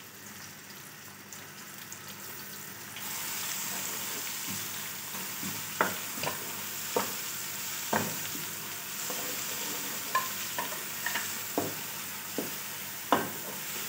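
Chopped onion sizzling in hot oil in a metal kadai, stirred with a wooden spatula that knocks against the pan several times in the second half. The sizzle gets louder about three seconds in.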